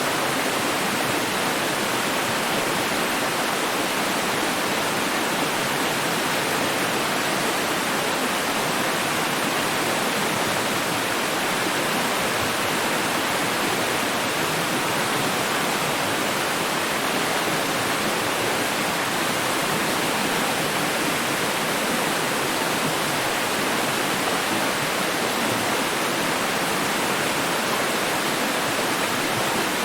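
Water running in a steady, unbroken rush, even in level throughout.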